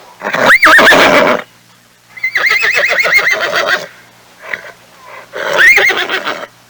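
Horse whinnying three times: a call that rises and falls in pitch, a longer quavering one, then a third like the first.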